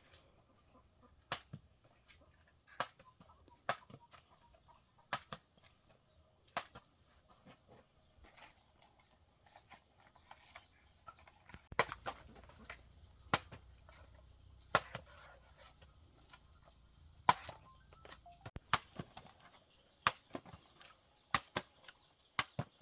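A run of sharp knocks at irregular intervals, about one a second, with a faint low hum in the middle stretch.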